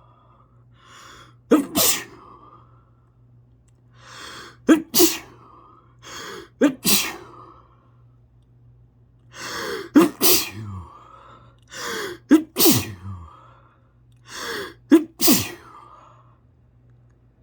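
A sneezing fit: six sneezes in a row, two to three seconds apart, each led by a short drawn-in breath.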